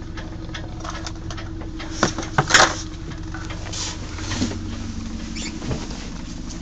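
Handling noise from a handheld camera being moved around: scratchy rubbing and scattered light clicks, with sharper knocks about two and two and a half seconds in, over a steady low hum.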